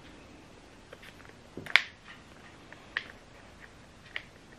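Handling of a smartphone: a few scattered light clicks and taps, the sharpest a little under two seconds in.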